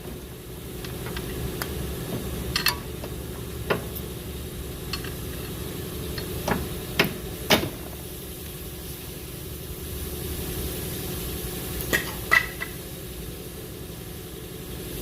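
Scattered sharp metallic clinks and knocks of hand tools and suspension parts while a front lower control arm is unbolted and worked free, over a steady low hum.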